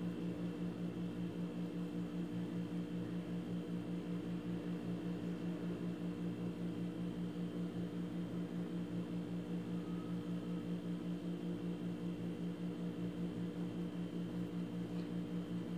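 Steady low hum with a fast, even pulse, like a fan or motor-driven appliance running; no distinct sound of the hand press is heard above it.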